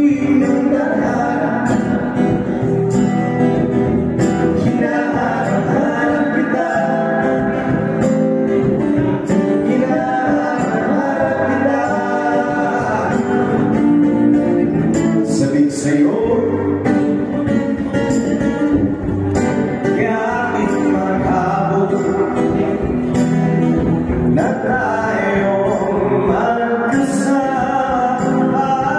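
Live band music: a man singing to acoustic guitar, with a drum kit keeping time.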